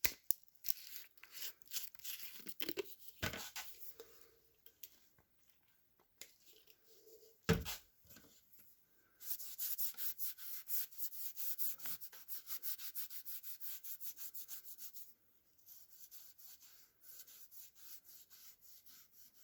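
Rubbing strokes applying shellac to a screwdriver handle: irregular at first, then a run of quick, even back-and-forth strokes in the middle, fading to fainter strokes near the end. A single sharp knock a little before halfway.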